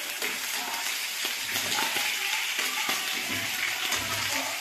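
Chopped garlic and onion sizzling in hot oil in a wok, a steady frying hiss with a few short taps and scrapes of the cooking utensils.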